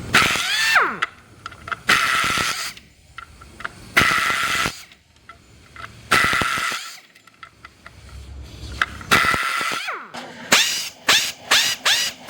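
Power screwdriver running in short bursts, each driving a screw, with a steady motor whine over a hiss. A few longer, spaced runs give way near the end to a quick series of short runs, about two or three a second.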